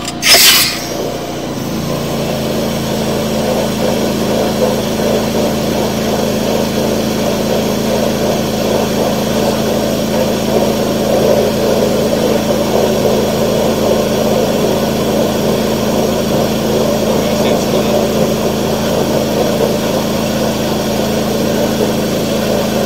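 A hydro jetter starts up with a short loud hiss, then runs steadily at pressure, engine and pump humming and water jetting through the sewer line as a Warthog rotating nozzle clears roots.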